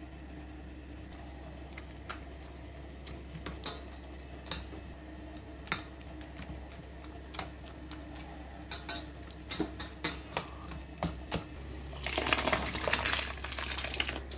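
A metal spoon clinking against a stainless steel bowl of cooked fruit in a series of sharp, irregular taps. Near the end the fruit and its juice are tipped from the bowl into a pot of compote liquid: a splashing pour lasting about two seconds.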